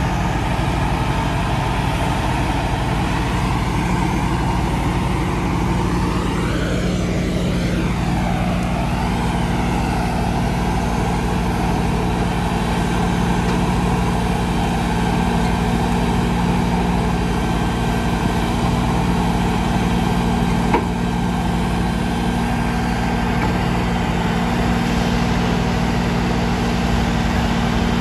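LS compact diesel tractor engine running steadily under load while its front loader and grapple carry and lift a log. About seven seconds in, a higher sound briefly rises and falls in pitch, and there is a single sharp knock about twenty-one seconds in.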